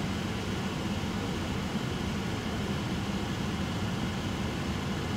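Steady hum inside a parked car's cabin with the engine running and the air-conditioning fan blowing: an even low drone under a soft airy hiss.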